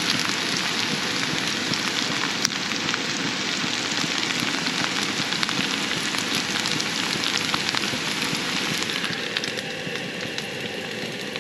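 A pan of shredded potatoes, green peppers and onions sizzling on a camp stove: a dense, steady crackle with many small pops.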